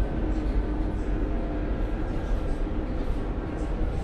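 Scania K230UB city bus under way, heard from inside the cabin: its five-cylinder diesel engine and drivetrain running with road noise as a steady low rumble, with a few faint steady tones above it.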